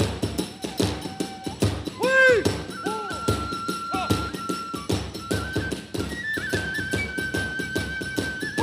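Kagura musical accompaniment: a transverse bamboo flute holding high notes with trills over quick, steady drum strokes and small hand cymbals.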